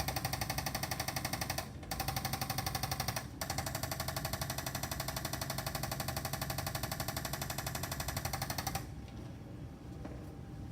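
Motorised chiropractic percussion instrument buzzing with rapid, even pulses during a mirror-image posture adjustment. It runs three times with two brief breaks and stops about nine seconds in.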